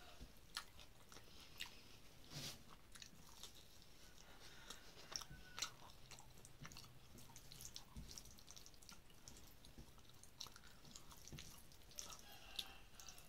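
Faint chewing of rice and curry eaten by hand, with scattered soft clicks and taps.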